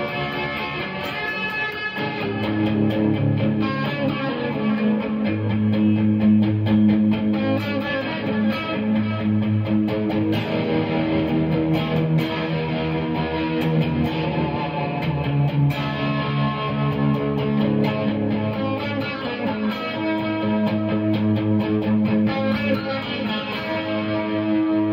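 1954 Fender Stratocaster electric guitar played through a J Rockett Caliber overdrive, Strymon Volante and Cloudburst pedals and a Mesa Boogie Lone Star Special amplifier, giving a crunchy, lightly overdriven tone. Riffs mix picked single notes with ringing chords, growing fuller and louder about two seconds in.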